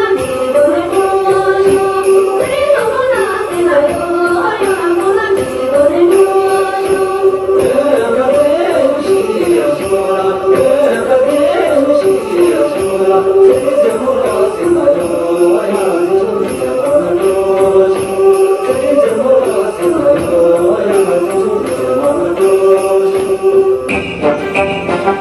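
Music: a gliding melody over a steady jingling of bells, changing to a different texture near the end.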